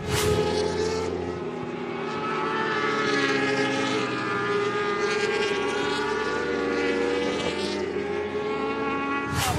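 Racing superbike engines running at high revs as the bikes ride past, their pitch slowly rising and falling with the throttle.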